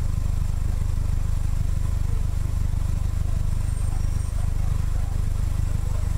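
Open-cockpit roadster's engine idling while stationary: a steady low rumble that holds level without revving.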